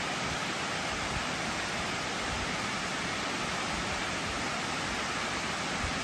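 Water pouring over a concrete dam's spillway crest and falling down its face: a steady, even rush of falling water with no pauses.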